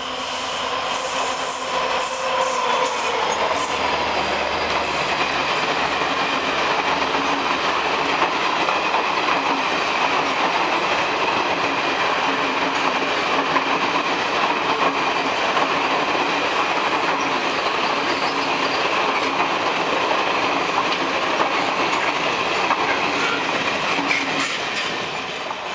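A WDP-4D diesel locomotive, with an EMD two-stroke engine, passes at speed, its engine heard as a pitched drone in the first few seconds. It is followed by the long steady noise of the Garib Rath Express coaches' wheels running over the rails, which fades near the end as the train recedes.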